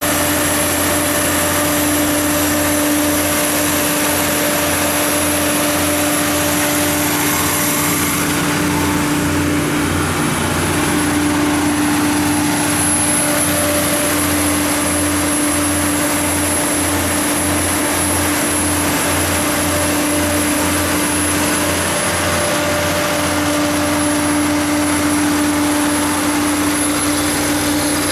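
Cummins QSB7-G3 six-cylinder diesel engine of a 100 kW generator set running at constant governed speed: a steady engine drone with a thin high whine over it.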